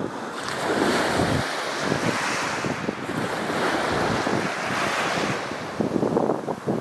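Wind buffeting the microphone in uneven gusts, over the steady wash of small waves breaking on a sandy shore. The gusts pick up again near the end.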